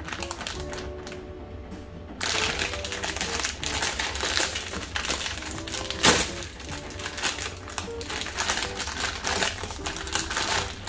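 Plastic instant-noodle packet crinkling and tearing open from about two seconds in, with one sharp loud rip near the middle, over background music.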